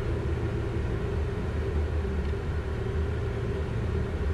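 Steady cockpit noise of a Learjet 60XR business jet in flight on final approach with the landing gear down: a low, even rumble of airflow and engines with a faint steady hum above it.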